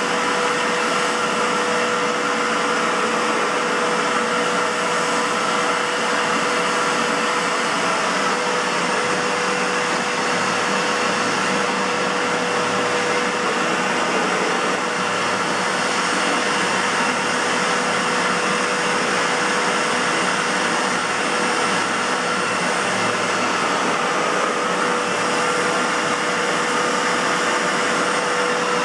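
Aerus Lux 5500 (Electrolux C152C) canister vacuum cleaner running steadily: an even rush of air with a constant tone running through it. The motor has a bad bearing.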